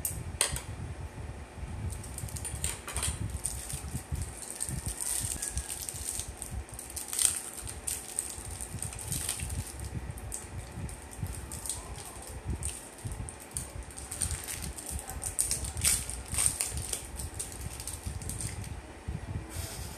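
Plastic snack wrappers crinkling as small wrapped sweets are unwrapped by hand, with irregular sharp crackles.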